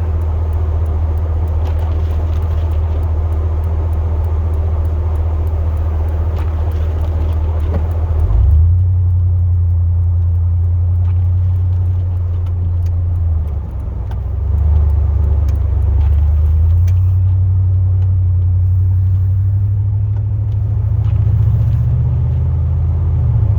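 Chevrolet Silverado plow truck's engine droning steadily, heard from inside the cab, with a rushing noise underneath that drops away about eight seconds in. The drone shifts pitch a few times, dipping briefly about halfway through and rising near the end.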